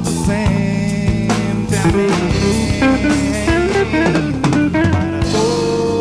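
Live band playing an instrumental passage on drum kit and guitar with a steady beat.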